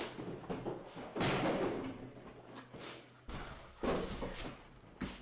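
A door banging and thudding several times, the loudest bang about a second in, heard thin and narrow through a Ring doorbell camera's microphone.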